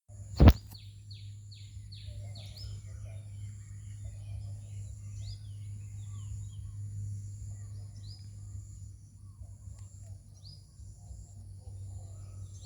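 Backyard garden ambience: a bird gives a quick run of about five falling chirps, then single falling calls every few seconds, over a steady high-pitched insect drone and a low hum. A sharp click sounds about half a second in.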